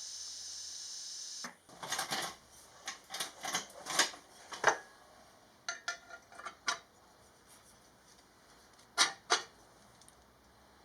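A steady hiss cuts off about a second and a half in, followed by a run of light metal clinks and taps of parts being handled on a workbench, with two sharper clinks near the end.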